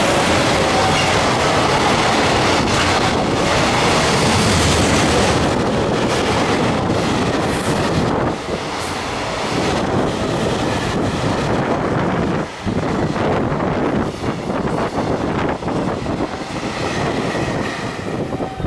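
Train running along the rails: a loud, steady rumble of wheels on track with some rail-joint clatter, easing off somewhat in the second half.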